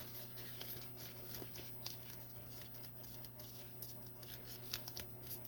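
Faint, irregular small clicks and sticky crackles as a cured flex-rubber squishy is pushed and peeled out of its mold, over a steady low hum.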